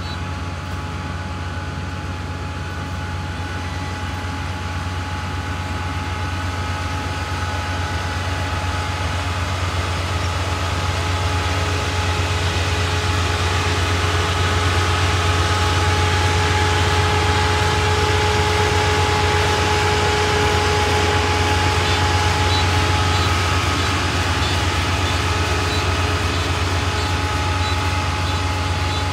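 Kubota ER448 rice combine harvester running while it cuts rice: a steady diesel engine drone with a few steady whining tones above it from the machinery. It grows louder over the first half as the combine comes closer, then holds steady.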